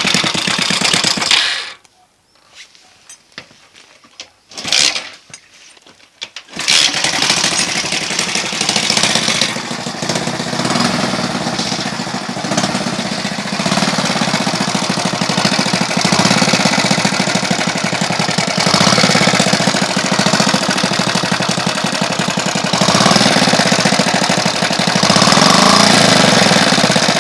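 Alpha moped's single-cylinder four-stroke engine running with a loud knock, with a freshly fitted cylinder, piston and head and the timing marks set; the cause of the knock is unknown to the owner. About a second and a half in it goes almost quiet for roughly five seconds, then runs again.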